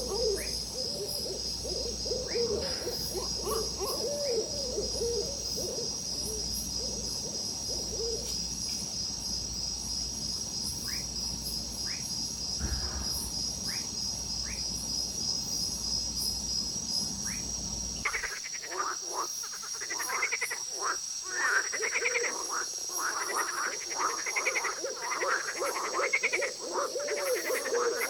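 Repeated low hooting calls over a fast, steady high-pitched insect trill. About 18 seconds in, this changes abruptly to a dense chorus of many croaking frogs calling over one another.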